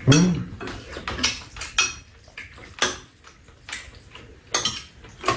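Metal spoons clinking and scraping against ceramic bowls while eating: a string of short, irregular knocks.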